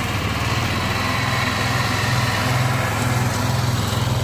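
Ride-on lawn mower engine running steadily as it cuts through long grass, a continuous engine hum.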